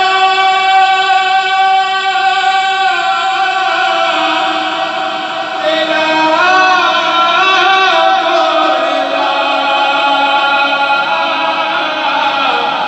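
A man singing an unaccompanied devotional kalam into a microphone over a PA system, holding long notes, with quick ornamental turns in the middle and a lower held note near the end.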